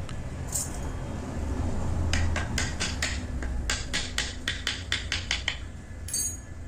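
Woodcarver's mallet tapping a carving chisel into a wooden panel: a quick run of light, sharp taps, about three to four a second, from about two seconds in until about five and a half seconds, over a steady low hum.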